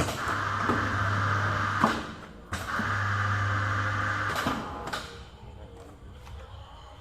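Ideal 52 cm electric paper guillotine running two cutting cycles: each is about two seconds of steady motor hum ending in a sharp clack.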